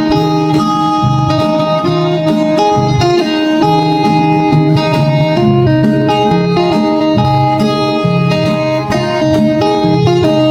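Background music led by a plucked guitar melody, at a steady loudness.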